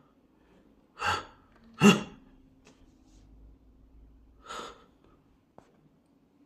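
A person sneezing: a sharp gasping breath about a second in, then a loud sneeze just under a second later, and another gasping breath near the end.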